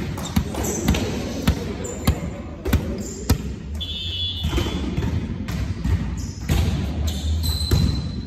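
Volleyballs being hit and bouncing on a sports-hall floor: irregular sharp smacks, about one or two a second, each ringing briefly in the large hall.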